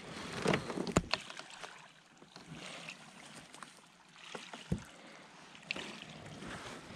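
Handling noise from a landing net and a freshly caught smallmouth bass on a kayak's deck: scattered knocks, clicks and rustling, with the loudest knocks about a second in and a single low thump near the five-second mark.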